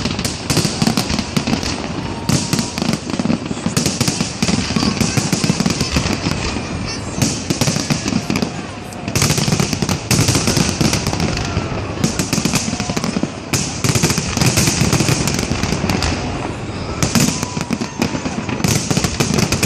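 Fireworks display: a dense, continuous barrage of bangs and crackling, easing off briefly about halfway through before picking up again.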